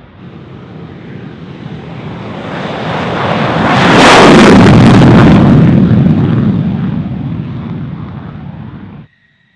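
F-16 Fighting Falcon's jet engine running at high power on its takeoff roll. The noise swells as the jet passes, is loudest about four to five seconds in, then fades and cuts off suddenly near the end.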